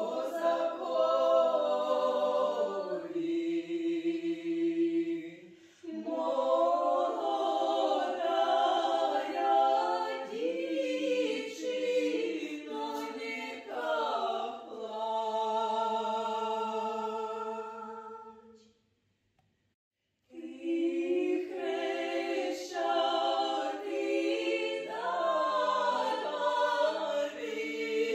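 A small group of women singing a cappella in several parts, with long held notes. The singing stops for about two seconds roughly two-thirds of the way through, then starts again.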